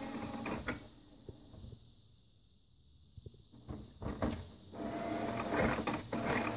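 HP OfficeJet Pro 8715 inkjet printer running a level-3 printhead recovery cycle. Its mechanism runs with clicks and knocks, goes quiet for about three seconds starting a second in, then starts up again.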